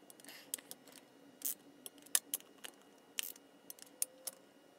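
Irregular light clicks and metal clinks of a torque wrench and socket on the oil pump bolts of a 42RE transmission, as the bolts are tightened to 15 ft-lb.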